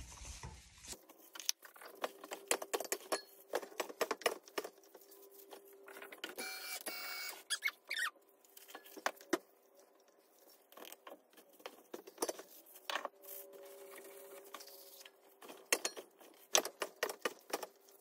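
Irregular clinks, knocks and scrapes of a metal bath bomb mold and gloved hands against stainless steel mixing bowls as loose bath bomb powder is scooped and broken up.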